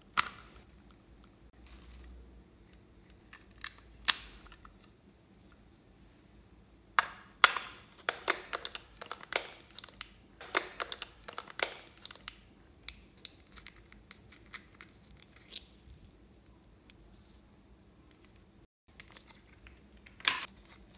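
Hollow hard-plastic toys handled by hand, giving a run of sharp plastic clicks and taps. There are a few single clicks, a dense cluster from about seven to twelve seconds in, and a last pair near the end, with quiet handling noise between.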